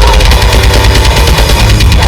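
Very loud music with a heavy, distorted bass line and a wavering melody on top, played through a large sound system.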